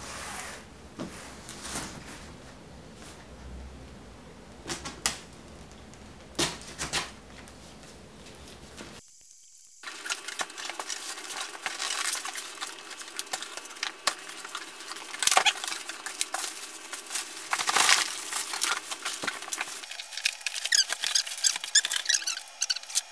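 A cardboard shipping box being opened by hand: scattered taps and scrapes on the cardboard, then dense rustling and crackling of flaps and packing paper from about ten seconds in, with a brief break just before.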